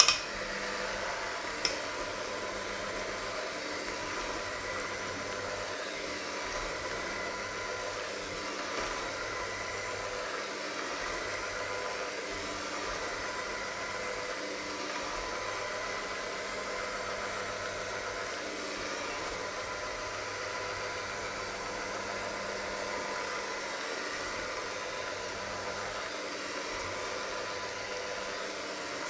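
Electric hand mixer running steadily, its beaters whisking a thick mixture in a stainless steel bowl. Two short sharp clicks in the first two seconds.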